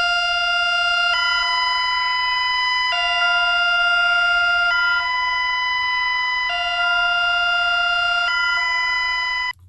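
Loud two-tone electronic emergency alert alarm, given as Bulgaria's, switching between a lower and a higher buzzy note about every two seconds, hi-lo, then cutting off suddenly near the end.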